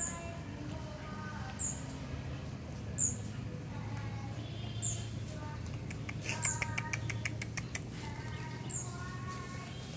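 Short high-pitched chirps repeating every second and a half to two seconds, with a quick run of rapid clicks about six seconds in, over a steady low hum and faint held tones.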